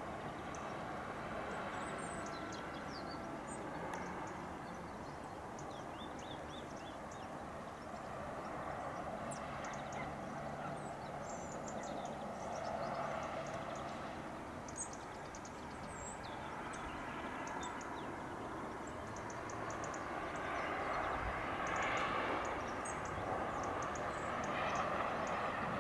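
Small birds chirping in short, high calls, scattered throughout over a steady outdoor background noise that grows louder near the end.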